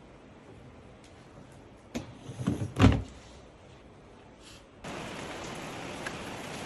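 A few household knocks, the loudest a dull thud about three seconds in, then a steady hiss that sets in near the end and holds level.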